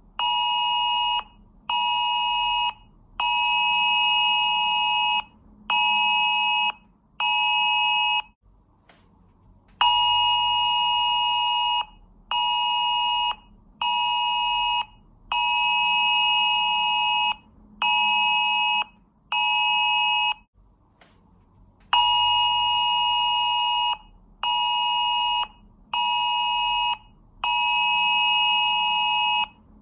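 UK Emergency Alert test tone: a loud alarm tone sounding in a repeating pattern of one long blast of about two seconds followed by two short ones of about a second each. The pattern breaks off twice, for about a second and a half each time.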